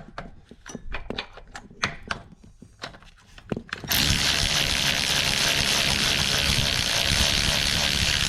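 Scattered clicks and knocks of tools on the rear hub, then about four seconds in a power ratchet starts and runs steadily with a loud, hissing whir, backing out one of the 14 mm bolts of a rear hub assembly.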